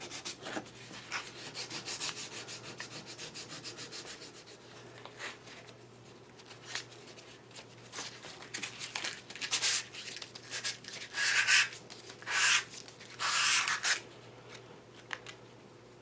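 Sandpaper rubbed by hand over a lathe part to take off sand marks. It starts as a quick run of short, even strokes, then after a quieter stretch comes a handful of longer, louder strokes.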